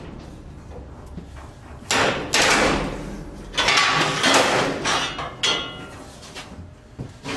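Metal clanks and scrapes from the folding deck's rails, hinges and latches being worked inside a metal livestock trailer. There are about five sudden knocks, each ringing on briefly and echoing in the trailer's metal body.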